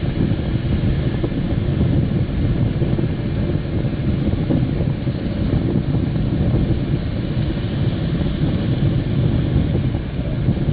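Strong wind rumbling steadily on the microphone, mixed with the wash of breaking surf.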